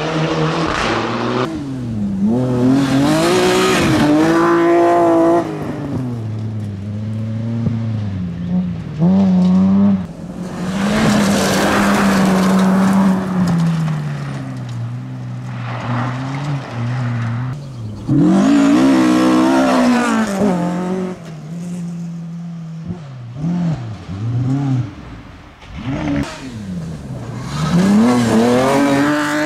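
Rally cars passing one after another at full throttle on a gravel stage, their engines revving hard with the pitch rising and dropping through the gear changes, and gravel spraying under the tyres. Several loud passes come and go, the last one near the end.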